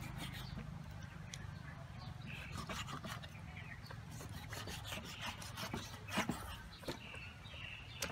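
Kitchen knife cutting raw pork offal on a round wooden chopping board: repeated knocks of the blade on the wood, mixed with rubbing and scraping as the meat is handled, with a couple of louder knocks about six seconds in.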